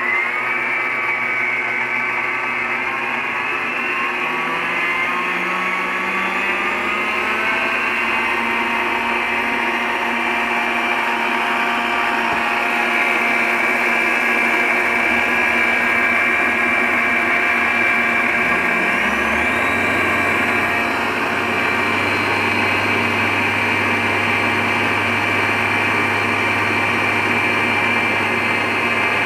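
Two planetary stand mixers whipping cooked egg whites and sugar into meringue with wire whisks, their motors whining steadily. The whine rises in pitch over the first several seconds as the speed is turned up, and about two-thirds of the way in a second mixer's motor climbs up to speed and joins it.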